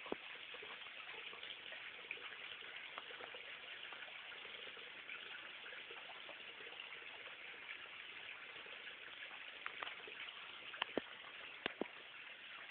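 Faint, steady trickle of water, with a few sharp clicks, most of them near the end.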